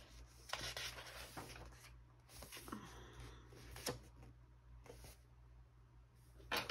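Pages of a large glossy catalog being turned and smoothed flat by hand: a soft paper rustle and rub, then a few faint taps and a sharp click near the end.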